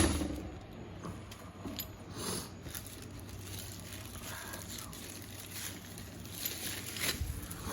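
Faint, scattered clicks and rustling from a tool and its parts being handled and packed away, after a sharp knock at the very start.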